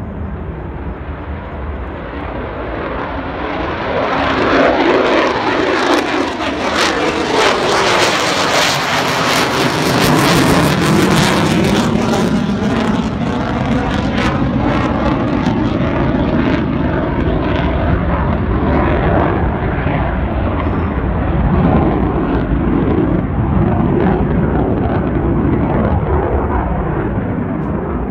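F-35A Lightning II's Pratt & Whitney F135 jet engine climbing out after take-off. The rumble swells about four seconds in and crackles harshly for several seconds with a sweeping whoosh as the jet passes overhead, then goes on as a deep steady rumble as it climbs away.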